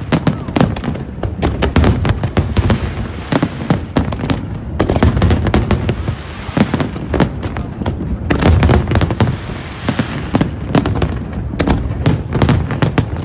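Aerial fireworks display: many shells bursting in quick succession, a dense run of sharp cracks over deep, overlapping booms.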